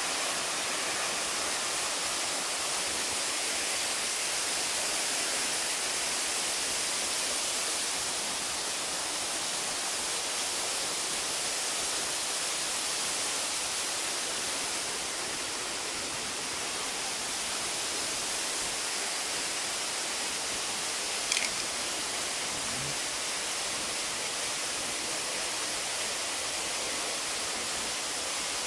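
Steady, even hiss with no tone or rhythm, with one short sharp click about two-thirds of the way through.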